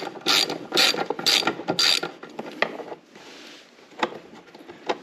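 A socket ratchet clicks in quick, even strokes, about two a second, as it backs out a screw on a mower deck belt cover. The strokes stop about two seconds in, and a few faint clicks of handling follow.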